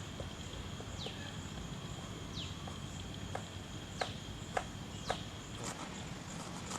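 Outdoor ambience: a bird gives short chirps that slide downward, four or five of them spaced a second or so apart, over a steady high insect-like drone. A few sharp knocks come through in the middle.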